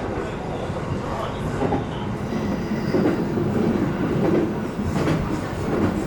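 JR East E531-series electric train running, heard from inside its front car: a steady rumble of wheels on rail, with a few faint clicks from rail joints.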